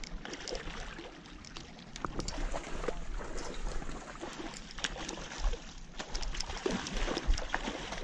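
A hooked salmon splashing and thrashing at the river's surface near the bank, with water sloshing and scattered knocks and rustles as the landing net is picked up from the grass and brought to the water.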